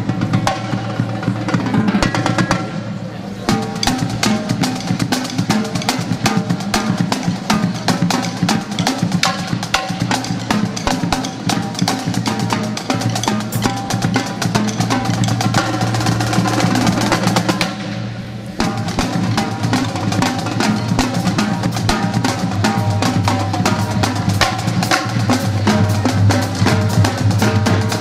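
Marching drums playing: rapid snare strokes and rolls over bass drum beats, with steady low tones underneath. The playing eases briefly twice, about 3 seconds in and again near the middle.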